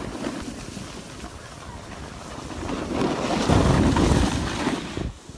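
Wind rushing over a handheld action camera's microphone as a snowboarder rides down the slope, mixed with the hiss of the board sliding over snow. It grows louder about halfway through and cuts off sharply near the end.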